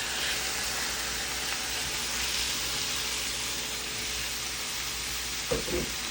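Chicken sizzling in a hot skillet: a steady frying hiss.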